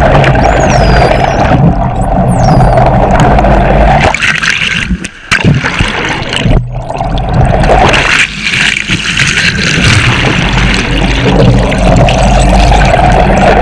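Underwater sound from just below the sea surface: rushing water and bubbles over the steady low drone of a boat's engine and propeller, with a high gliding bottlenose dolphin whistle about two seconds in. The water noise drops away briefly around five seconds in.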